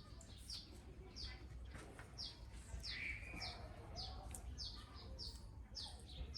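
A small bird chirping over and over: short, high chirps that fall in pitch, about two a second.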